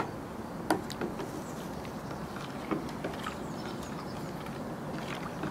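A thin rod stirs a soapy liquid mixture in a plastic tub, giving a faint steady swishing, with a few short light knocks of the rod against the tub, one about a second in and two close together about three seconds in.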